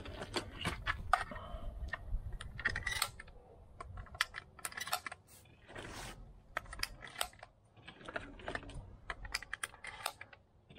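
Shotgun shells being handled and loaded into a shotgun: a run of irregular clicks and metallic rattles.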